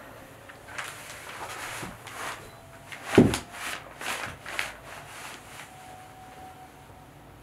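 A large ink-soaked calligraphy brush coming down on paper on the floor with one heavy thud about three seconds in, then scrubbed and dragged across the paper in several quick swishes and rubs.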